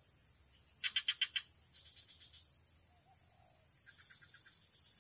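Outdoor animal sounds: a steady high insect drone, broken by short rattling trills of quick pulses. The loudest trill comes about a second in, with weaker ones near two and four seconds.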